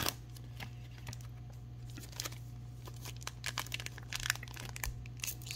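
Foil booster-pack wrapper of Digimon trading cards crinkling in the hands, with faint scattered crackles as it is handled and worked open.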